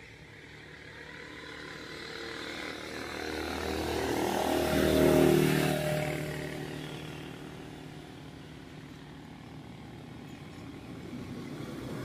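A motor vehicle driving past: its engine grows louder, is loudest about five seconds in, then fades away.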